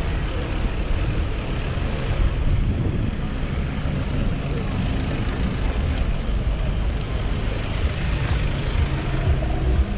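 Slow, congested street traffic heard from close among the cars: car engines idling and running, with steady low engine hums, and a few faint clicks a little after halfway.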